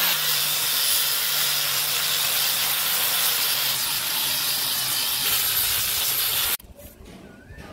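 Electric angle grinder with a sanding disc running against a rough wooden plank: a loud, steady grinding hiss with a low motor hum beneath. It cuts off abruptly about six and a half seconds in.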